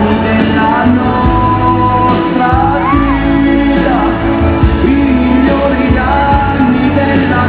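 Pop song with a singing voice, playing loudly and steadily.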